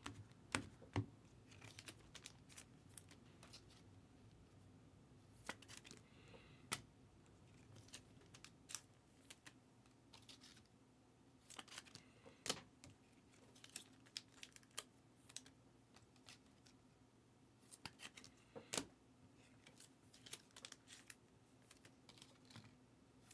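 Quiet desk handling noise: scattered light clicks and taps, irregular and sometimes in quick little clusters, over a faint steady low hum.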